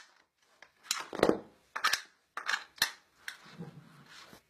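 Mechanism of a homemade rubber-band machine gun giving about half a dozen sharp plastic snaps and clicks, then fainter rattling clicks. These are typical of the magazine being seated, which releases the toggle-lock bolt so it springs forward.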